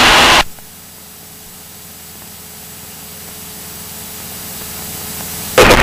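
Steady in-flight cabin noise of a Cessna 172SP's engine and propeller cuts off sharply about half a second in. A faint steady hiss with a low hum follows and slowly grows louder, until the loud cabin noise returns abruptly near the end.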